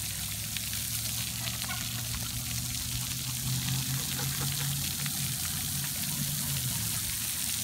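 Splash pad water jets spraying and spattering onto the wet pad, a steady hiss with a low hum underneath.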